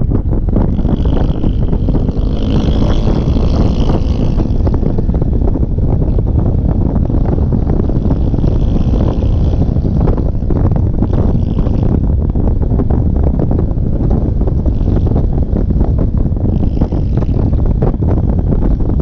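Heavy wind rushing over the camera microphone on a Honda scooter riding at speed, over the scooter's engine and road drone; a loud, steady, low rumble.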